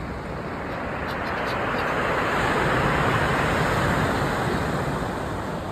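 Sea surf on a pebble beach: a wave breaking and washing over the shingle, swelling to its loudest about halfway through and fading away near the end.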